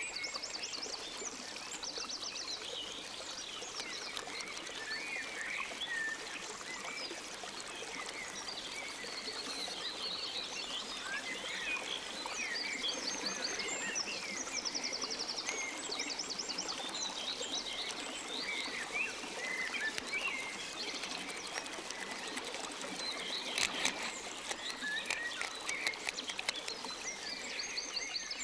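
Woodland birds singing, with many short chirps and repeated buzzy trills, over the steady trickle of a shallow rocky stream. A brief crackle of clicks comes about 23 seconds in.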